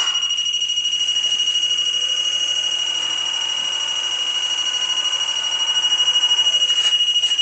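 Probe station's electronic alarm buzzer sounding a continuous high-pitched beep with a fast flutter, set off by the hinge manipulator's contact switch touching the part.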